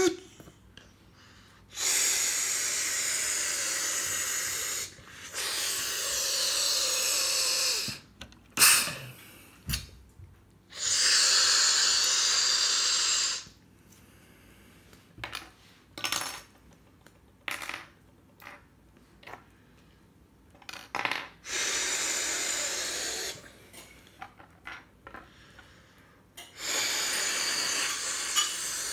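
Hissing bursts like pneumatic air releases, each lasting two to three seconds and about five in all, with short clicks and knocks between them.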